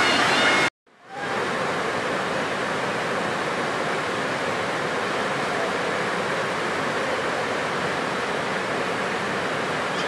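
Steady rush of fast white water pouring over sandstone rapids and a waterfall. It cuts out abruptly just under a second in and comes back a little quieter as the same steady rush.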